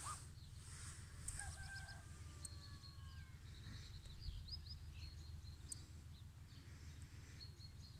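Faint bird calls: short high chirps in quick runs, with one longer drawn-out call about a second and a half in.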